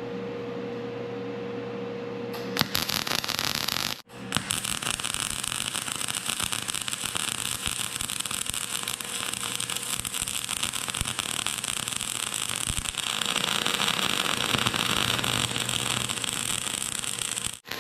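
MIG welding arc burning .035 dual-shield (gas-shielded flux-core) wire, a steady crackling hiss that starts about two and a half seconds in after a steady hum, breaks off briefly near four seconds, and runs on, a little louder in the later part.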